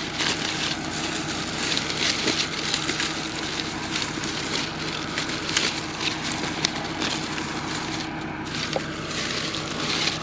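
Dry corn husks and stalks crackling and rustling as they are handled, over the steady hum of the idling combine's engine.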